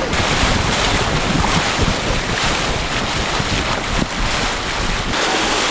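Wind buffeting the microphone and water rushing past the hull of a moving boat, a loud, even rush with a heavy low rumble that drops off abruptly about five seconds in.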